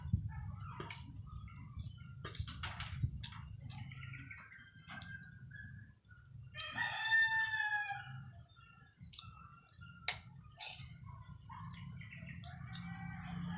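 A rooster crows once, loud and wavering, about six seconds in, with fainter chicken calls before and after it. Sharp clicks of a metal spoon against a steel wok run throughout.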